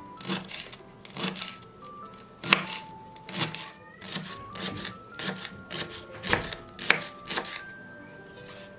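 A knife chopping food on a cutting board: a series of separate, uneven cuts, roughly one to two a second, ending about a second before the end. Soft background music plays underneath.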